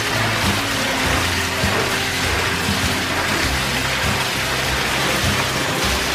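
Water pouring from a wooden flume onto an overshot water wheel: a steady splashing rush.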